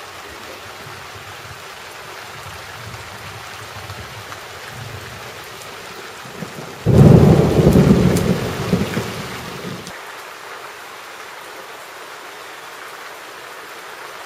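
Steady rain falling, with a sudden loud thunderclap about seven seconds in that rumbles and dies away over about three seconds.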